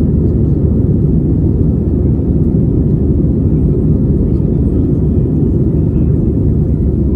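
Steady low rumble of an easyJet Airbus A320-family airliner's jet engines and rushing air, heard from inside the passenger cabin during the climb after takeoff.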